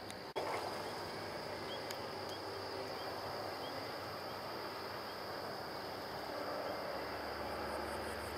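Steady outdoor background noise with a high steady hiss and a string of faint, short high chirps. The sound cuts abruptly about a third of a second in.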